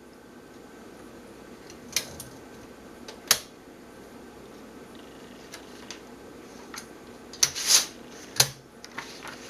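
A few separate clicks and clacks from a 1952 Smith-Corona Silent typewriter's mechanism, spaced out rather than steady typing, with a louder cluster and a short rattle near the end, over a steady low hum.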